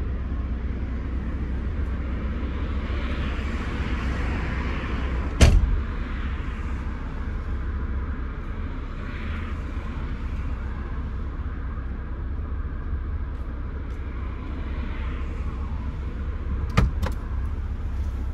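Tofaş Doğan SLX engine running steadily with a low rumble. There is a single sharp thump about five seconds in and a couple of clicks near the end.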